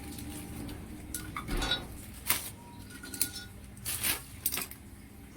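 Metal tools and small engine parts clinking against each other, about six separate clinks, some with a brief ring, during work taking the valves out of a DOHC cylinder head.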